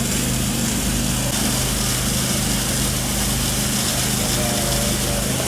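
A small engine running steadily at a constant speed, with a low hum underneath.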